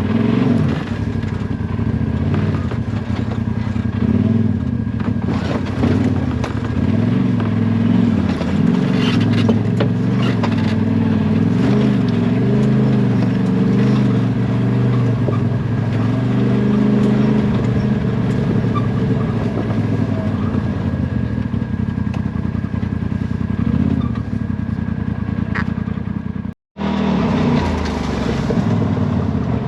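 Side-by-side UTV engine running continuously under varying throttle on a trail, its pitch wavering up and down, with scattered knocks and rattles. The sound breaks off for a moment near the end.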